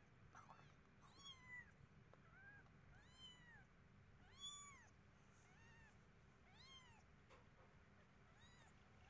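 Eight-day-old kittens mewing faintly: a string of about ten short, high-pitched mews, each rising and falling in pitch, roughly one a second, the loudest about four and a half seconds in.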